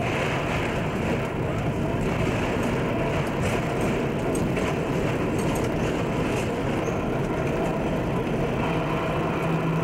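Broad Street Subway train running: a steady rumble with a low, constant hum and faint scattered ticks.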